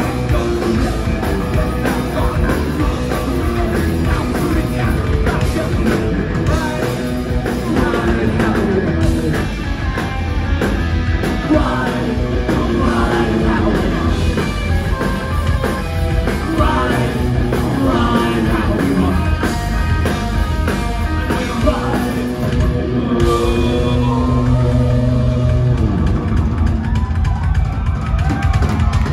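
Punk rock band playing live and loud: distorted electric guitar, bass and a drum kit, with a singer yelling the lyrics into a microphone over the band.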